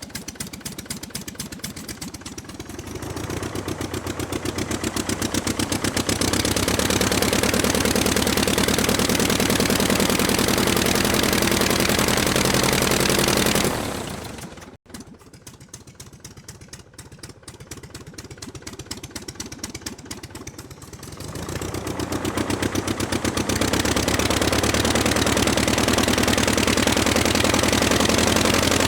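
Aircraft piston engine on a ground run, with a rapid firing clatter. It idles, is throttled up to a steady high power, drops back to idle about halfway through, and is throttled up again near the end.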